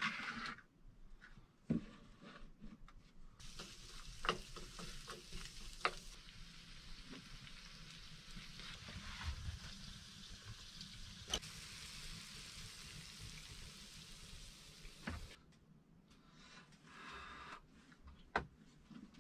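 Food sizzling in a frying pan on a small wood stove, a steady hiss that starts a few seconds in and cuts off sharply about three-quarters through. Sharp clinks of utensils on the pan come throughout.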